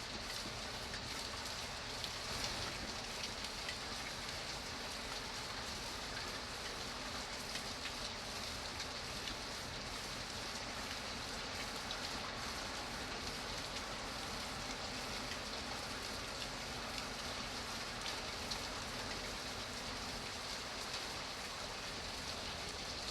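Steady rain falling, a dense even patter of raindrops on a surface.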